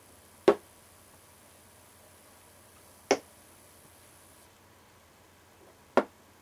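Chess pieces set down on a wooden chessboard three times, roughly every two and a half to three seconds: short, sharp knocks, each a move being played.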